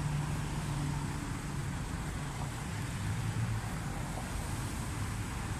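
Steady low rumble of road traffic with an engine hum that wavers slightly in pitch.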